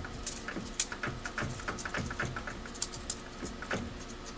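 Light, irregular clicks and ticks of small tools being handled at a milling machine's end mill and vise while the work is centred with a feeler gauge, a few clicks sharper than the rest, over a faint steady hum.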